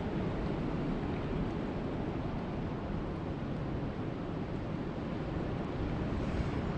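Steady rain, an even rushing noise with no breaks.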